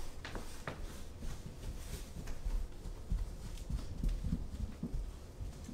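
Footsteps of someone in socks walking away and down a flight of stairs: a run of dull thumps, a few sharper taps about half a second in.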